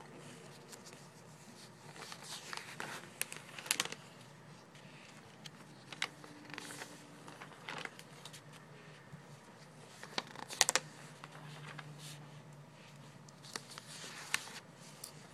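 Pages of a glossy paper catalog being turned and flipped by hand: paper rustling and crinkling, with sharper page-flip snaps about four seconds in and again near ten and a half seconds.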